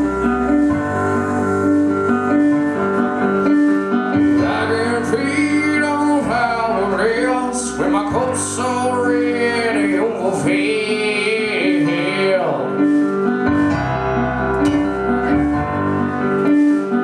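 Band music with a steady repeating bass and keyboard figure. A singer comes in about four seconds in with a long, wavering, drawn-out vocal line that fades out near twelve seconds.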